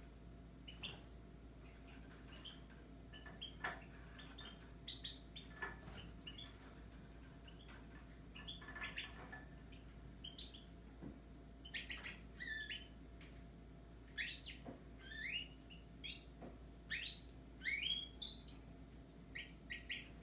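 Caged European goldfinches and Raza Española canaries chirping and twittering in short, scattered calls, busier in the last few seconds.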